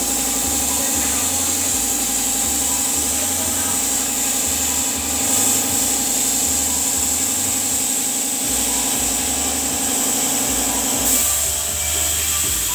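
50-watt CNC CO2 laser cutter running while it cuts plywood: a steady machine hum with a high air hiss, and a lower hum that stops about eleven seconds in.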